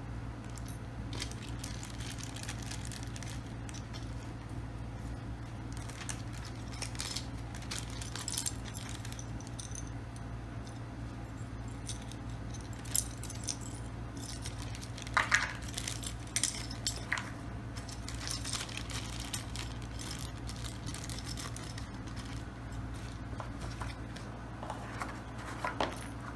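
Scattered light clicks, clinks and rustles of a keyboard, its small plastic parts and packaging being handled, over a steady low hum. The sharpest clicks come about halfway through.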